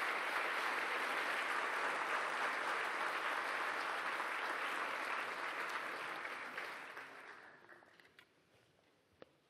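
Audience applauding, steady for about seven seconds, then dying away.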